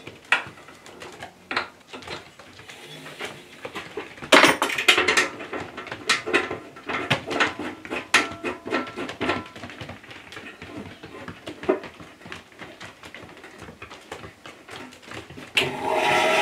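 Scattered metallic clicks and knocks as the lower blade guide bearings of a Record Power BS250 10-inch bandsaw are adjusted and the lower wheel door is handled. Near the end the bandsaw starts and runs with a steady hum, with the blade clear of the guides and none of the little scratching noises.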